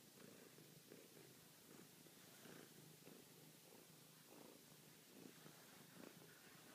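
Domestic tabby-and-white cat purring steadily and quietly, close to the microphone.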